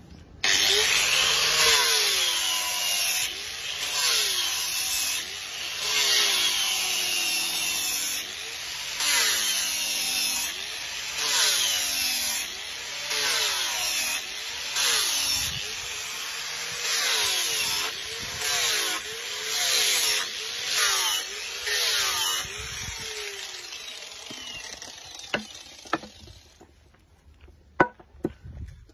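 Handheld angle grinder with an abrasive disc grinding the wooden face of a cricket bat. It starts suddenly about half a second in, and its pitch dips and recovers about once a second as each pass is pressed into the wood. Near the end it winds down and stops, followed by a few knocks as the wood is handled.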